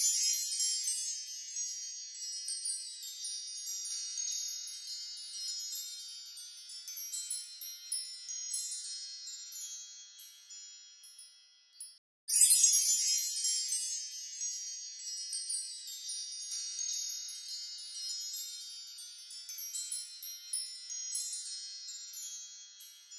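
A sparkly chime sound effect: a dense shower of high tinkling notes that comes in at once and slowly fades, cuts out about halfway through, then starts over at full strength and fades again.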